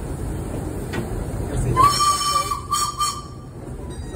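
Heritage railway passenger carriage rumbling along the track. About halfway through, a single steady high tone sounds for about a second and a half, with a brief hiss near its end.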